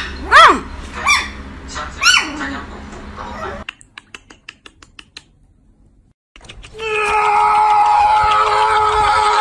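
Puppy yipping: three short high barks, each rising then falling in pitch, in the first two seconds, followed by faint light ticks. Near the end a steady, held pitched sound begins and lasts about three seconds.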